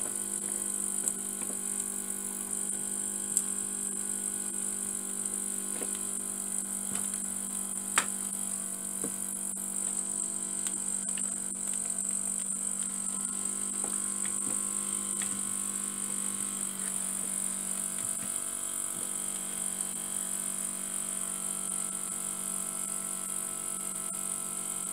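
Steady low electrical hum under a constant high hiss, with a few faint sharp clicks.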